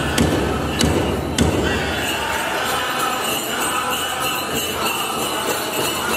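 Powwow drum struck in a steady beat, a little under two beats a second, with the chicken dancers' ankle sleigh bells jingling. The drum stops about a second and a half in, leaving the bells jingling under held singing voices.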